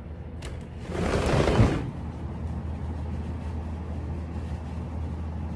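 Midea U window air conditioner running quietly with its compressor on, a steady low hum and no cranking noise. About a second in, a brief rush of noise lasting under a second.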